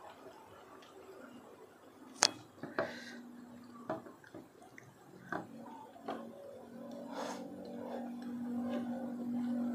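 Eating by hand: a few sharp clicks and taps of fingers and food against the bowls, the loudest about two seconds in, with soft chewing. From about seven seconds a steady low hum comes in and grows louder.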